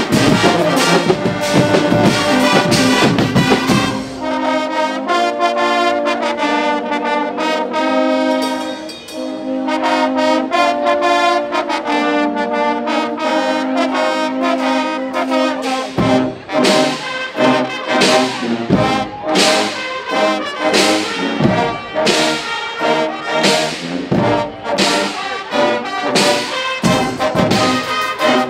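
Guggenmusik brass-and-percussion band playing loudly. Trumpets and trombones carry the tune. The low drums drop out about four seconds in, leaving the brass alone, then come back with a steady beat a little past halfway.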